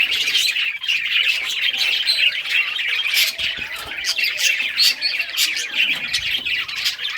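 A flock of budgerigars chirping and chattering continuously, many short overlapping chirps and squawks at once.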